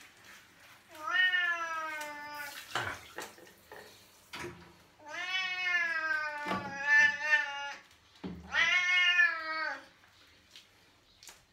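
Domestic cat giving three long, drawn-out meows while being bathed: one about a second in, then two close together in the second half, each rising at the start and sagging slightly at the end.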